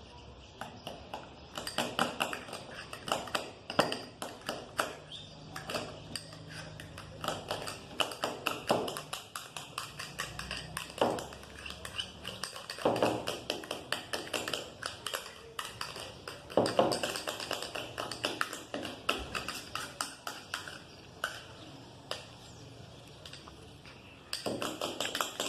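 A spoon stirring glue and shaving foam in a container, with quick, irregular taps and clicks of the spoon against its sides.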